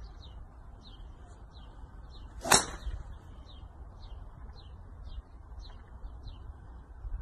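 A golf swing with a driver off a driving-range mat, with one sharp strike about two and a half seconds in. Faint bird chirps repeat about twice a second in the background.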